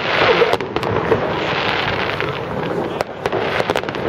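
Fireworks going off: a dense crackling of bursting stars with sharp bangs scattered through it, several close together about three seconds in.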